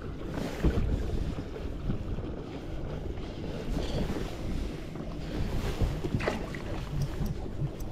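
Wind buffeting the microphone over water lapping around a kayak, with a brief falling squeak about six seconds in.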